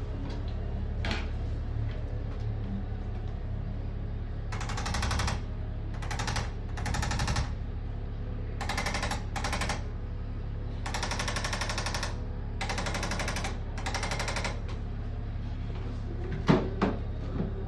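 Arthrostim electric adjusting instrument firing bursts of rapid percussive taps: about eight bursts, each half a second to a second long, with short pauses between. A steady low hum lies underneath, and there is a sharp knock near the end.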